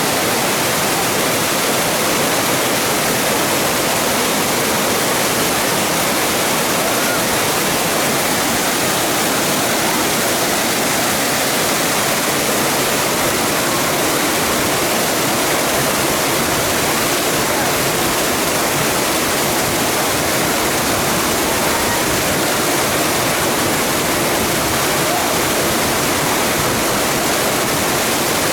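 The Voevodin mountain waterfall, its water pouring over the rocks in a loud, steady, unbroken rush.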